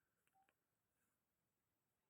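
Near silence between ringtones, with one very faint short beep just under half a second in.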